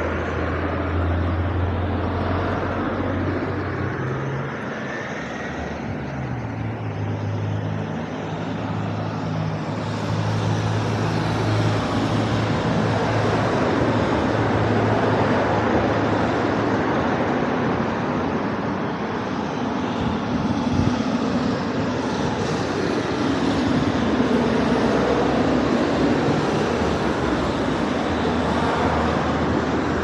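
Steady outdoor rumble of engine and traffic noise, with a low engine hum that shifts in pitch during the first ten seconds and then fades into the general din.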